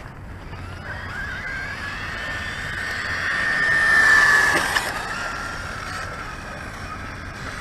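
Electric RC car's motor whine rising in pitch as it accelerates, loudest about four seconds in as the car passes close, then dropping in pitch and fading, with a hiss of tyres on wet ground.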